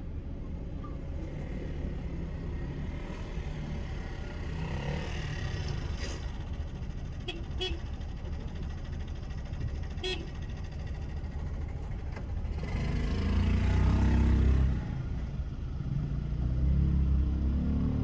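City road traffic heard from a moving car: a steady low rumble of engines and tyres. A few short, sharp sounds come near the middle, and a vehicle passes loudly about two-thirds of the way through.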